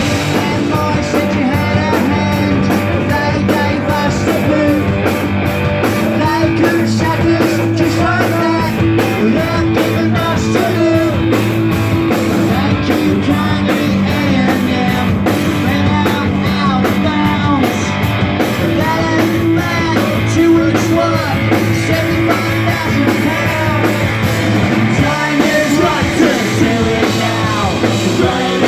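Punk rock band playing live, with guitars, drums and a sung lead vocal, loud and continuous.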